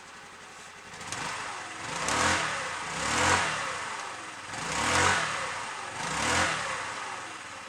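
Honda water-cooled four-stroke scooter engine idling and revved up and back down four times in quick succession, shortly after a cold start following two weeks unused.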